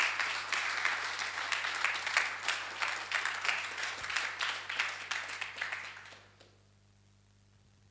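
Audience applauding, dying away about six seconds in.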